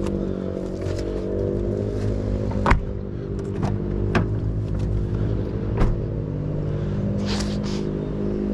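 A motor vehicle's engine running steadily while driving, a low hum, with a few sharp clicks and knocks over it.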